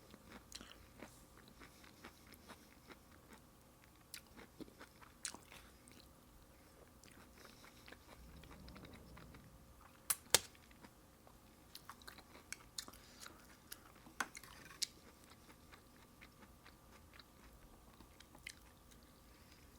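Close-miked mouth sounds of someone chewing food: scattered wet clicks and occasional crunches, with two louder clicks about halfway through.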